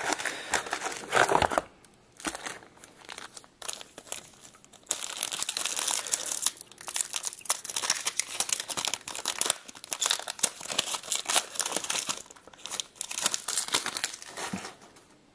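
Plastic wrapper of a trading-card pack crinkling and tearing as the pack is opened, in bursts of crackling with short pauses.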